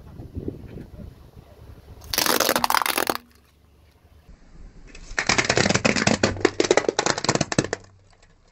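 Car tyre crushing a glitter-covered Christmas ornament ball: a loud, sudden crunch about two seconds in as the ball bursts. About five seconds in, a longer run of dense crackling and crunching follows for nearly three seconds.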